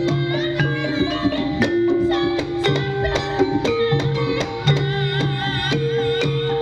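Javanese gamelan ensemble playing Banyumasan-style music: metallophones ringing held notes that step from one pitch to the next, over frequent drum strokes, with a wavering melody line above.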